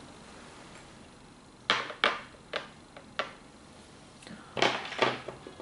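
Glass perfume bottles being set down and shifted on a shelf: a series of short knocks and clinks, starting about a second and a half in and spaced irregularly, with a couple more near the end.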